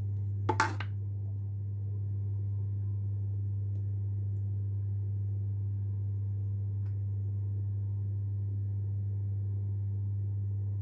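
Steady low hum throughout, with one short sharp noise about half a second in.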